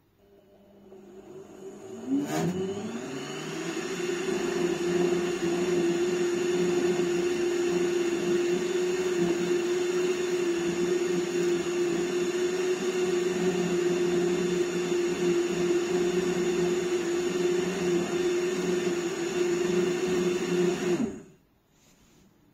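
Electric motor of a small mains-powered appliance spinning up with a click, its whine rising in pitch and settling into a steady high hum that runs evenly, then cutting off suddenly about a second and a half before the end. It reads about 73 dB on a sound level meter.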